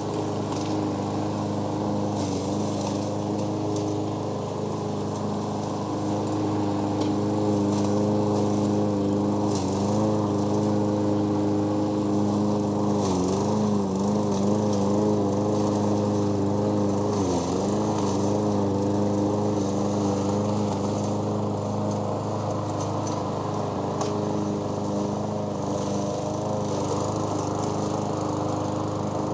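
Gasoline lawnmower engine running steadily under load. Its pitch dips briefly twice, about 13 and 17 seconds in, then recovers.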